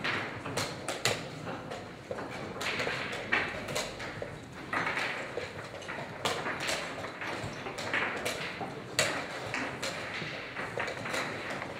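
Wooden chess pieces being set down on a board and a digital chess clock's buttons being pressed during fast blitz play: a run of sharp knocks and clicks, about one or two a second.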